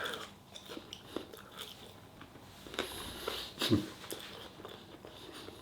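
Faint biting and chewing sounds of a man eating, with a short voiced murmur about three and a half seconds in.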